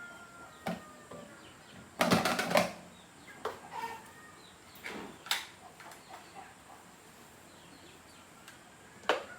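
A few short sharp knocks and rattles, the loudest a quick rattling cluster about two seconds in, with single knocks scattered after it and one more near the end.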